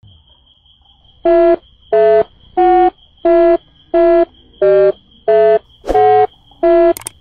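A short, flat-pitched buzzy beep repeated at an even, machine-like pace, about three every two seconds, over a faint steady high whine.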